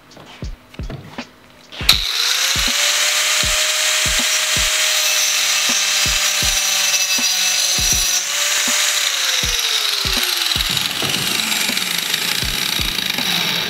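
Angle grinder with a 115 mm tungsten-carbide wood-cutting disc starting abruptly about two seconds in and cutting through a wooden board: a loud whine over coarse cutting noise, the whine sinking in pitch near the end before the sound dies away. Background music with a steady beat runs underneath.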